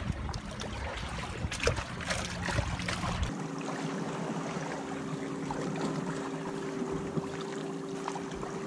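Seawater sloshing and trickling among jetty rocks, with wind on the microphone and some crackling clicks. About three seconds in the sound changes to a steadier wash with a faint steady low hum.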